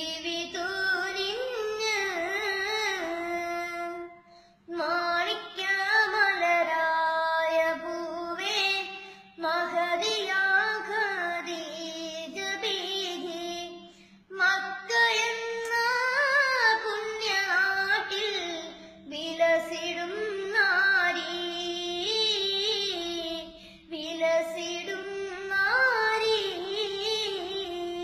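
A boy singing solo without accompaniment in a high voice. Phrases of long held, wavering notes break for breath about every five seconds.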